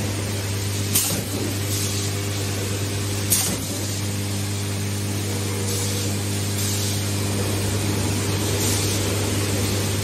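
An automatic tarpaulin eyeleting and cutting machine running with a steady hum. Bursts of air hiss come from its pneumatic heads, and there are two sharp clacks, about a second in and three and a half seconds in.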